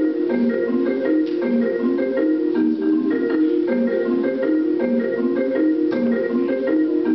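Progressive rock band playing live: a fast, repeating figure of short pitched notes with light percussive ticks, steady in level.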